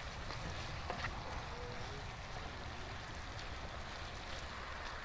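Meat and vegetables sizzling steadily in a hot wok, with a few faint ticks as a silicone spatula stirs and scrapes the pan.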